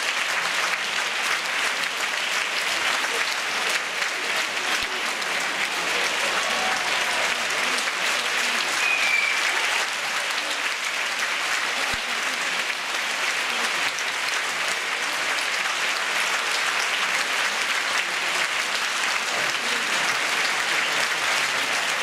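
Large theatre audience applauding steadily, many hands clapping at once without a break.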